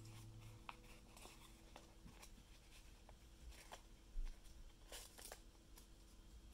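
Faint rustling and crackling of origami paper being folded and creased by hand, with a few sharper crackles about four and five seconds in.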